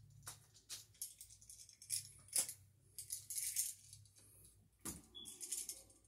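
Needle-nose pliers clicking and scraping on copper wire as loops are bent into the wire ends: a few sharp metallic clicks and short rustling scrapes, with a faint steady low hum underneath.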